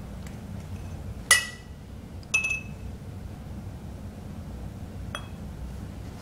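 Glass cups clinking: two sharp clinks about a second apart, each with a brief ringing tone, and a fainter clink near the end.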